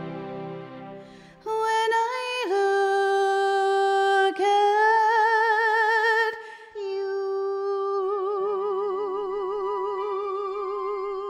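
Female voice singing the final phrase of a musical-theatre ballad over soft orchestral accompaniment. A fading chord is followed by a high note held about five seconds with vibrato, then a last long note with vibrato over a low held tone.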